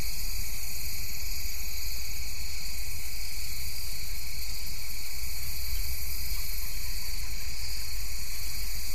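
Steady insect chorus, a continuous shrill trilling at several pitches that never lets up, over a low rumble.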